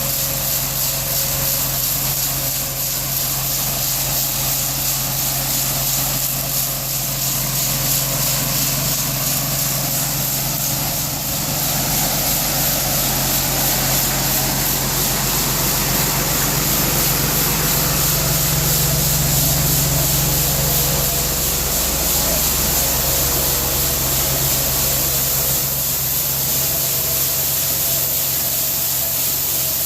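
Grain-handling machinery running steadily while corn is unloaded into the bins: a low hum with a constant hiss, the hum swelling briefly about two-thirds of the way in.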